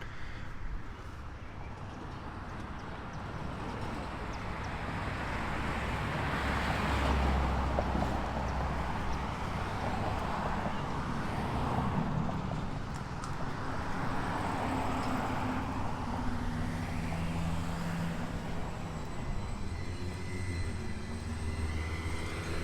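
Motor vehicles driving past one after another, their noise swelling and fading several times, with the steady note of a heavier engine running near the end.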